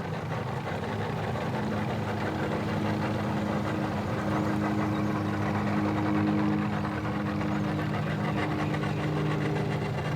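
Engine running steadily at low speed, a steady hum whose pitch shifts slightly about four seconds in and again at the end.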